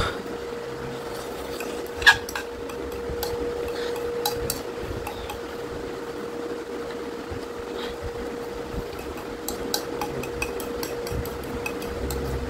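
Metal fork clicking and scraping against a plastic bowl in scattered, irregular clinks as the last noodles are gathered up, the sharpest clink about two seconds in. A steady hum runs underneath.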